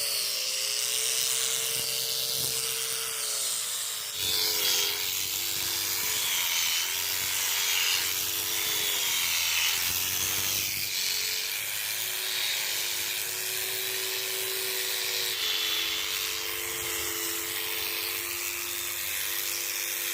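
Electric sheep shearing machine running, its motor hum wavering up and down in pitch as the blades work through a ram's wool.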